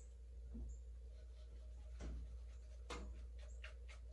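Faint scattered clicks and taps as a plastic seasoning container of garlic powder is handled and opened over a bowl, over a low steady hum.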